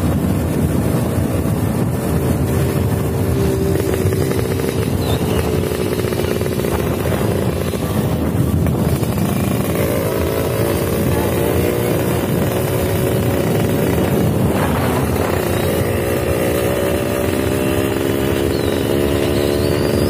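Motorcycle engine running while riding, its note rising and falling with speed, over heavy wind rush on the microphone.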